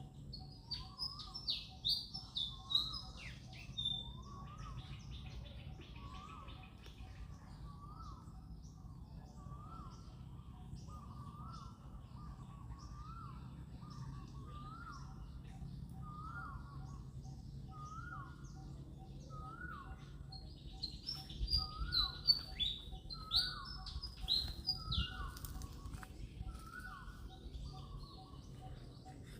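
Birds calling: one bird repeats a short up-and-down note about once a second, while bursts of high, rapid chirps come near the start and again about two-thirds of the way through.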